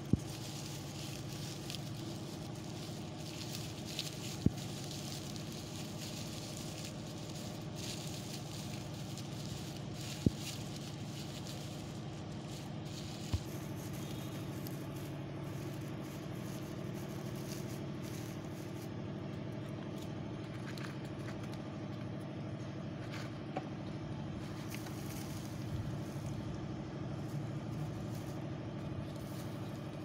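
Dry straw rustling and crackling as it is bunched and pressed into a nest shape, over a steady low hum. A few sharp clicks stand out above the rest.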